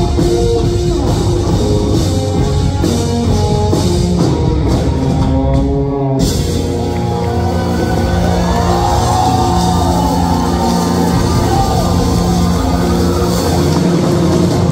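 Live rock band playing an instrumental passage: electric guitar, electric bass and a drum kit with cymbals.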